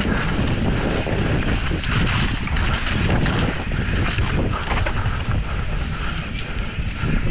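Mountain bike descending a rough dirt-and-rock trail: wind buffeting the helmet camera's microphone over the rolling of knobby tyres on dirt, with frequent small knocks and chatter as the bike runs over stones.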